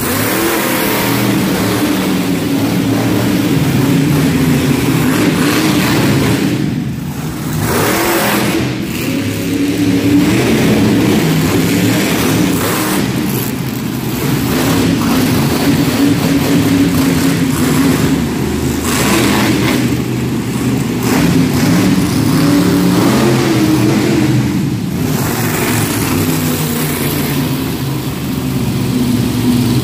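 Monster truck engines running hard and revving, the pitch rising and falling, with a few brief lifts off the throttle.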